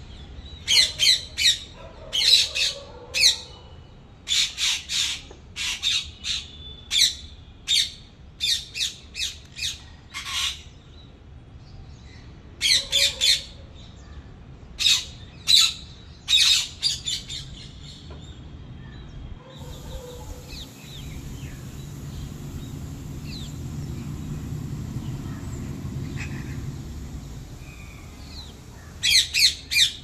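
Rose-ringed parakeets calling with sharp, shrill squawks, mostly in quick runs of two to four. The calls stop for about ten seconds past the middle, while a low rumble swells and fades, then a short run of squawks comes again near the end.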